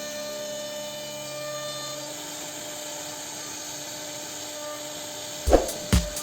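CNC router spindle cutting wood, a steady whirring hum. A few last notes of background music fade out early on, and about five and a half seconds in, the heavy beat of the music comes back in with thumps about twice a second.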